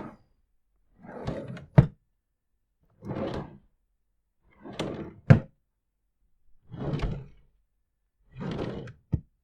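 Drawers sliding open and shut one after another: six short sliding runs with silence between, three of them ending in a sharp knock as the drawer bangs shut.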